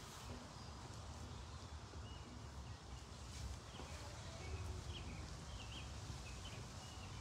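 Quiet outdoor ambience: small birds chirping now and then in short calls over a faint low rumble.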